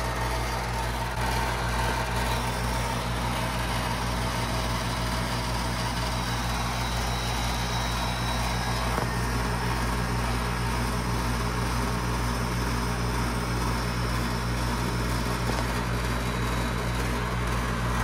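Outdoor air-conditioning condenser unit running steadily, a low compressor hum under the rush of the condenser fan, while the system is being charged with R-22 refrigerant.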